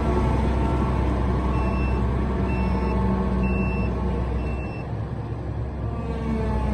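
John Deere 1170 combine harvester's engine running with a steady low rumble. Its reversing alarm beeps four times, about once a second, and the engine note dips briefly near the end.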